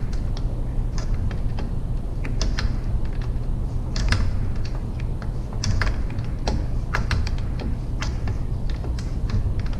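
Irregular light metallic clicks and taps, a few a second, of a wrench working the packing nut on an airless paint sprayer's pump. A steady low hum runs underneath.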